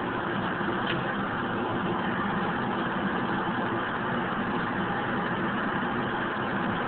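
Steady hum and rush of an indoor shooting range's ventilation system running, with no shots fired.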